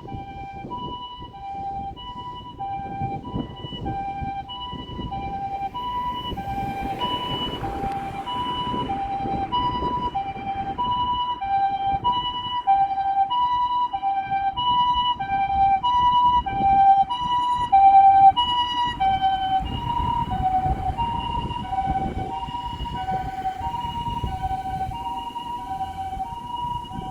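Japanese ambulance's TCD siren sounding its two-tone hi-lo "pii-poo" call, alternating evenly between a higher and a lower tone. It grows louder to a peak about two-thirds of the way through, drops slightly in pitch as the ambulance passes, then fades a little, over road and engine noise.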